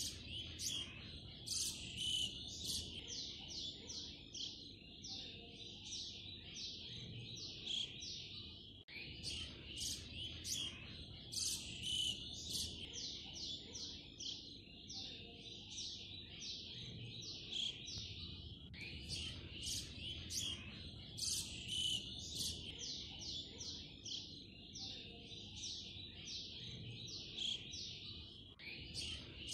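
Birds chirping in quick runs of high notes, a looped background track that repeats about every ten seconds.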